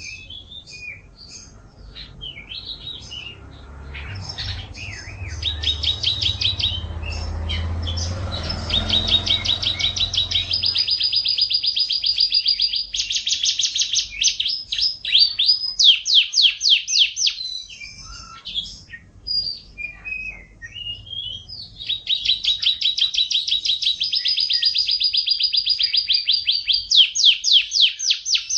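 Domestic canary singing: fast chattering notes and long rolling trills in high, rapid strings, with a low hum underneath for several seconds in the first half.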